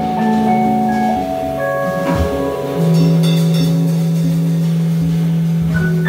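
Live jazz band with piano, double bass and drums playing: bell-like keyboard notes held over a sustained low note, with a few light cymbal or drum strokes.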